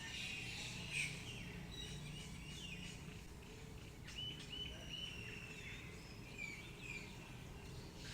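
Several birds chirping and singing in short whistled phrases, one after another, over a steady low background noise.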